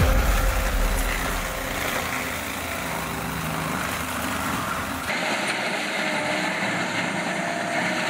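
Diesel engine of a Bobcat compact track loader working under load as its forestry mulcher head grinds into evergreen trees, with a heavy low rumble in the first second or so. About five seconds in, the sound cuts abruptly to another tracked forestry mulcher's engine running with a steady high whine.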